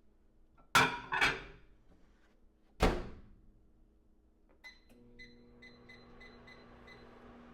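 Microwave oven being loaded and started: two ringing clattering knocks, then the door shutting with a thump. After that a run of about six evenly spaced keypad beeps plays over the steady hum of the microwave starting to run.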